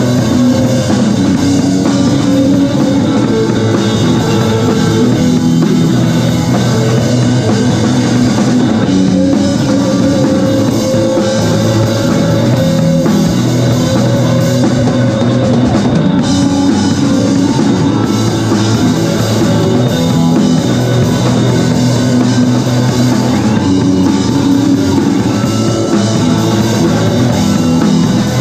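Live rock band playing loudly: a drum kit with electric guitars.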